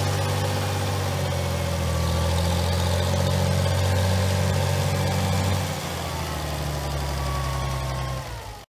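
1960 Farmall 460 tractor engine running steadily while the tractor is driven. The sound eases a little about six seconds in and cuts off suddenly near the end.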